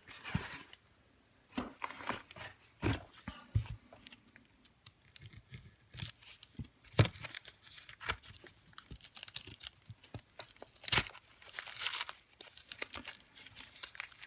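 Packing wrapping being torn and crinkled while locks are unpacked from a parcel, with scattered sharp clicks and knocks of things being handled.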